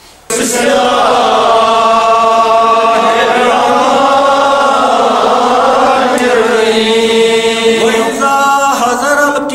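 A man's voice chanting a religious recitation in long, held melodic phrases, starting abruptly.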